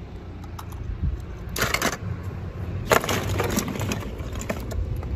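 Hollow plastic ball-pit balls clattering and knocking together as a hand digs through them, with scattered clicks and two busier bursts.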